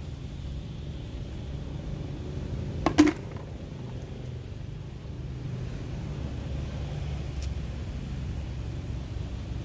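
Steady low background rumble, with a short sharp knock about three seconds in.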